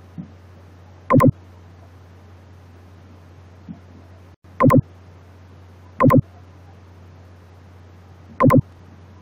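Four short, loud buzzing blips, irregularly spaced about one and a half to three and a half seconds apart, over a steady low hum.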